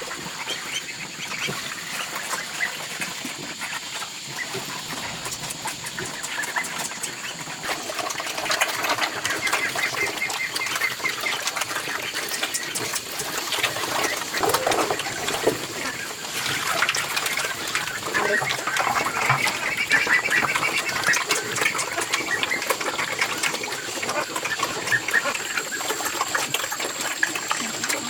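Poultry calling, many short overlapping calls that grow busier a few seconds in, with scattered clicks.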